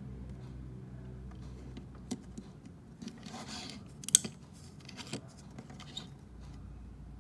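Light handling noises: a few small clicks and a short rustle, the sharpest click about four seconds in, over a low steady hum that fades out after about two seconds.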